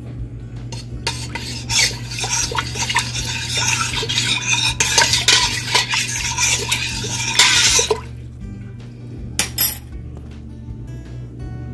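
A spoon stirring water in a stainless steel pot, scraping and clinking against the pot for about seven seconds, then one short scrape near the end.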